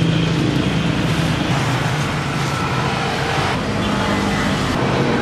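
Steady traffic and vehicle engine noise, an even hum without distinct events.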